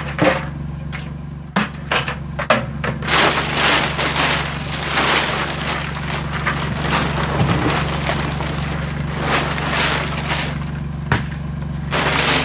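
Chicken feed being scooped out of a woven bulk tote bag into plastic buckets: the bag rustles and the feed rattles, after a few knocks of buckets being set down in the first couple of seconds. A steady low hum runs underneath.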